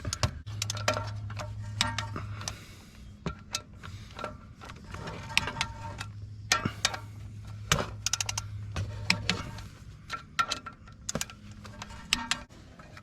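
Ratcheting wrench clicking in short irregular runs as the clutch pressure plate bolts are tightened down to torque, with a steady low hum underneath for most of the time.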